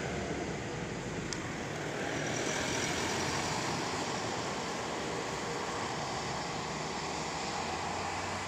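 Steady rushing traffic noise from a nearby road, swelling a little about two seconds in as a vehicle goes by, with a single short click just over a second in.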